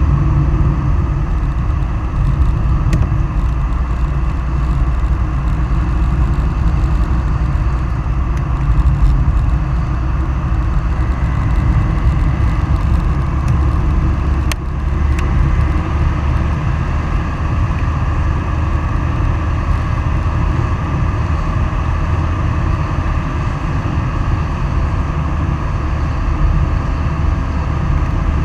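Steady rushing wind and road rumble on the microphone of a camera travelling fast down an asphalt road, heaviest in the low end, with a few faint clicks.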